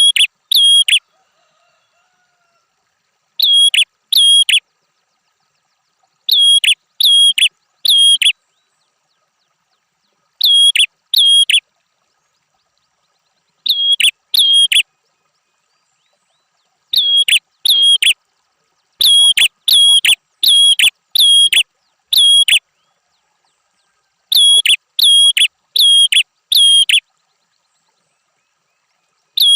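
A prenjak (prinia) calling loudly with sharp, identical chirps. The chirps come in quick runs of two to five, separated by short silences, like a repeated masteran recording.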